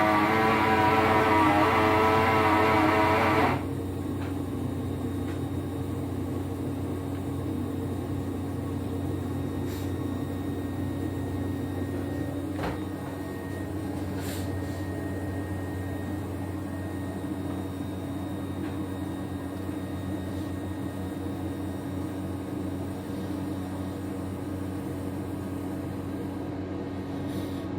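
Music that cuts off about three and a half seconds in, followed by a steady machine hum with faint constant whining tones.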